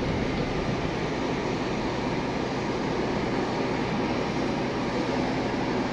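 Steady mechanical drone with a constant low hum from a passenger train standing idle at a station platform.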